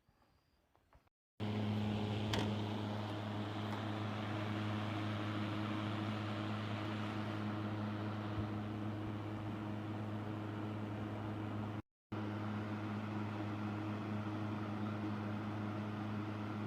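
Electric fan running steadily: a motor hum under the rush of air from the blades. It starts abruptly about a second and a half in and cuts out briefly about twelve seconds in.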